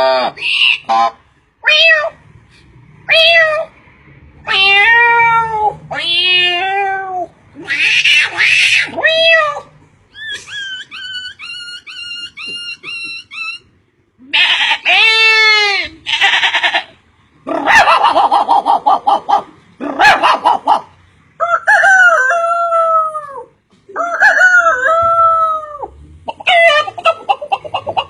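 A man imitating animal and bird calls with his voice: a string of separate calls, many falling in pitch, with a rapid run of repeated chirps a little past ten seconds in.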